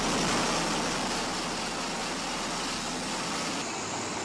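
Bell Boeing V-22 Osprey's engines and spinning proprotors running on a ship's flight deck: a steady, loud rushing noise.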